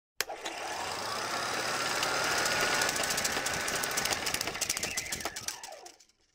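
Channel-intro sound effect: a sudden hit, then a rushing whoosh full of rapid mechanical clatter, with a faint rising tone. It swells over the first few seconds and fades out near the end.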